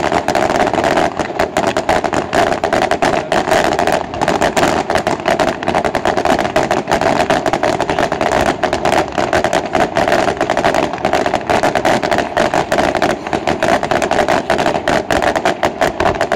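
Aerial fireworks display: a dense, continuous barrage of bangs and crackling from bursting shells, with no break.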